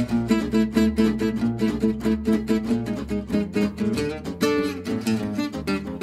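Background music: an acoustic guitar playing a fast jazz line of quickly plucked notes.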